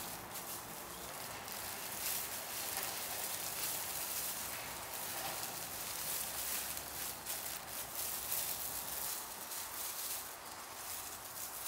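Plastic wrap and a disposable plastic glove crinkling and rustling in irregular crackles as hands press and shape small kimbap rolls.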